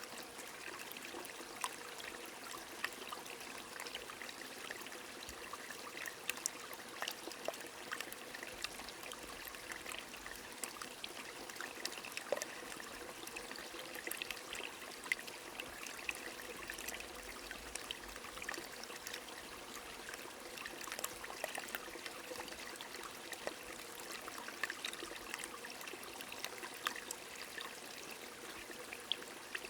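A small stream running and trickling steadily, with light rain falling in many scattered sharp drops.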